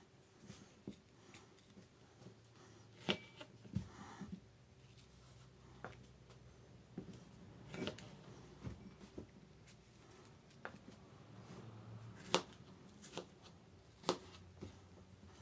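Kitchen knife slicing fresh strawberries on a plastic cutting board: irregular sharp taps as the blade meets the board, with soft handling sounds between.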